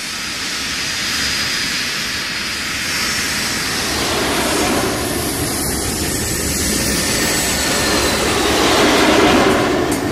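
Jet airliner engines running up for take-off: a dense rushing noise with a faint high whine over it, swelling slowly and loudest near the end.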